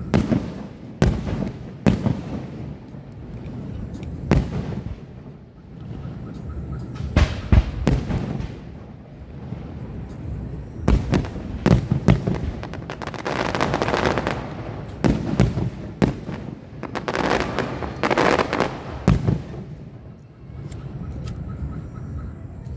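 Fireworks display: aerial shells bursting one after another in sharp bangs, with denser stretches of rapid bangs a little past halfway.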